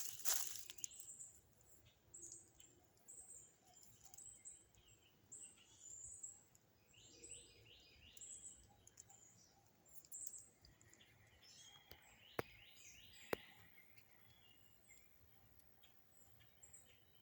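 Birds chirping on and off in high short notes, with a brief rustle at the start and two sharp knocks about a second apart about two thirds of the way through.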